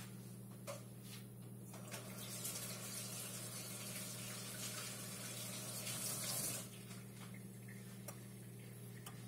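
Kitchen tap running into the sink for about five seconds, turned on about two seconds in and shut off near seven seconds, over a steady low hum.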